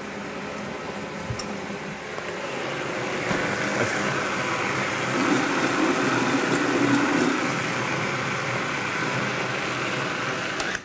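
Countertop blender running, blending a thick soup with cream added. The motor grows louder a couple of seconds in, holds steady, and cuts off suddenly near the end.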